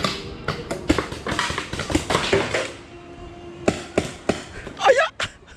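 Paintball markers firing: a string of irregular sharp pops, some close together, with a few short shouts in between.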